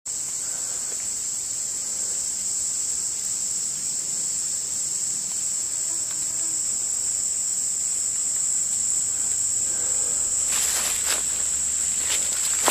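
Steady, high-pitched drone of a summer insect chorus. Footsteps crunching in dry leaf litter begin near the end.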